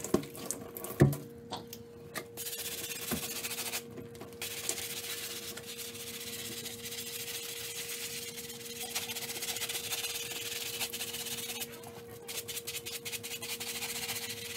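Cloth rubbing over a wet mesh running shoe to dry it, a steady scratchy hiss with a few short pauses. A single thump, the loudest sound, comes about a second in.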